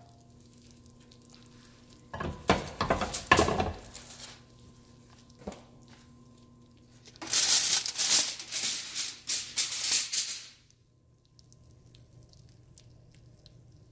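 Aluminum foil crinkling and rustling in two bouts, the longer one about three seconds, as the foil is pulled off the hot baking dish; afterwards faint crackling ticks of the mole sauce bubbling in the glass dish.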